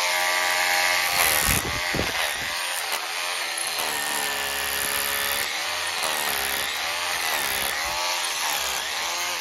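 Power drill with a long twist bit boring into old cement beside an embedded hand-forged iron bolt, drilling it free. The motor runs steadily, its pitch wavering up and down as the bit bites.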